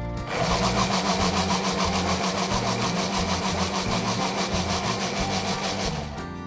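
Electric kitchen blender motor running steadily for about six seconds with a whirring hum, then switching off.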